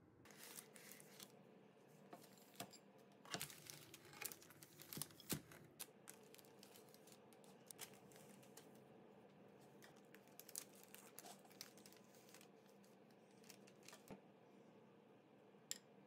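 Crinkling and rustling of the translucent wrapping sheets around slices of fruit tart as they are handled, with scattered small clicks. Busiest in the first six seconds, sparser after.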